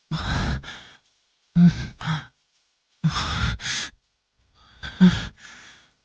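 A man's heavy, breathy sighing: four breaths, each a quick pair of out-breaths with a little voice in them, about a second and a half apart.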